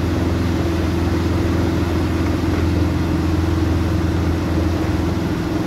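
Speedboat outboard motor running steadily at speed, with the rush of water churning in its wake.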